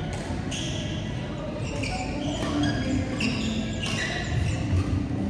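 Basketball being dribbled on a hard court, repeated bounces, with several short high squeaks.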